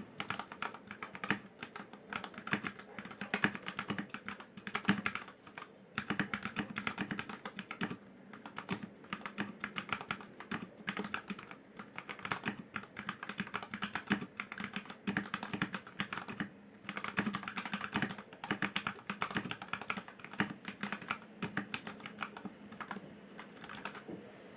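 Typing on a stock Tecware B68 mechanical keyboard with unlubed Gateron Yellow linear switches: a fast, steady run of key clacks that stops briefly a few times.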